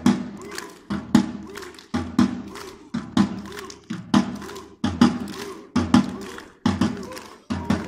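A group of people chanting together in a steady beat: each beat opens with a sharp hit, followed by a short chorus of voices, about one beat a second, nine in all.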